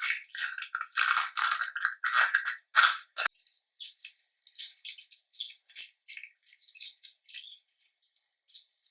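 Slime being squished and worked by hand: several loud wet squelches over the first three seconds, then a quicker run of small, quieter crackles and pops.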